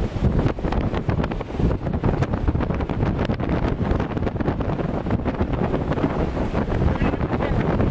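Strong storm wind blowing across the microphone: a loud, steady, low rush with constant fluttering buffets.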